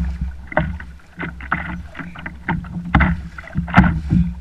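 Choppy seawater slapping irregularly against a plastic kayak hull, over a rumble of wind on the camera microphone.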